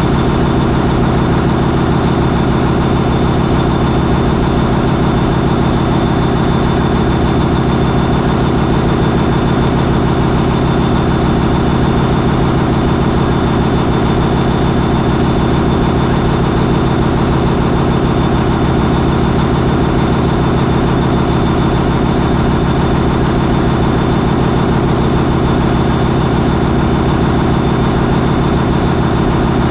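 MAN 20V28/33D STC twenty-cylinder V marine diesel main engine running steadily at about 800 RPM, with the sequential turbocharger stage engaged. A thin, steady high whine sits over the loud, even engine noise.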